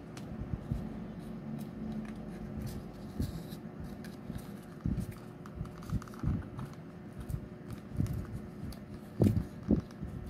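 Card paper finger puppet being folded and handled: scattered light rustles, clicks and taps of stiff card under the fingers, with two louder low knocks near the end.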